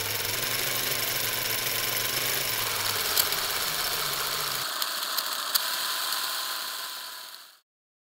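Film projector running with a steady mechanical whir and clatter. Its low hum drops out a little past halfway, and the rest fades out near the end.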